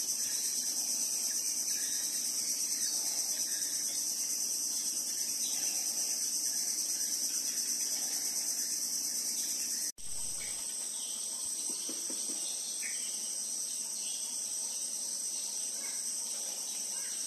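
Steady, high-pitched chorus of insects droning without pause, with a brief break about ten seconds in.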